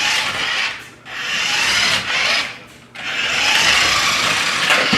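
Toy remote-control car drifting, its tyres skidding and scrubbing across the floor in three scratchy stretches broken by short pauses.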